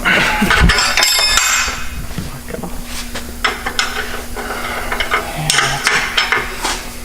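Metal tools and exhaust parts clanking and rattling against each other, with a ringing metallic clatter about a second in and scattered knocks after, over a steady low hum.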